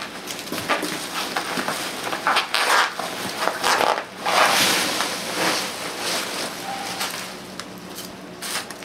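Hands digging through foam packing peanuts and bubble wrap in a cardboard box, giving irregular bursts of rustling and crunching.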